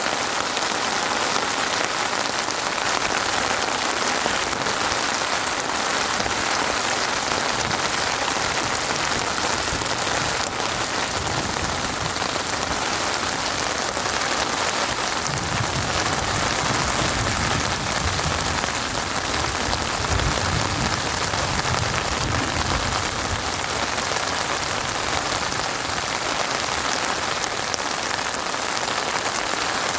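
Steady rain falling, a dense even patter of drops on surfaces, with a low rumble in the middle stretch.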